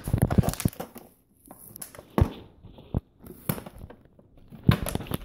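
Plastic water bottle being handled and knocking against a stone countertop: scattered knocks and crinkles, with a sharp knock about two seconds in and a louder run of knocks near the end.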